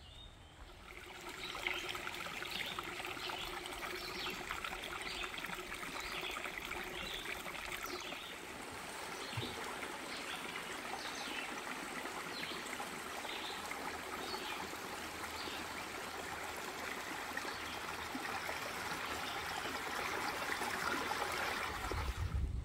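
Small rocky woodland brook trickling over stones: a steady rush of running water that comes in about a second in.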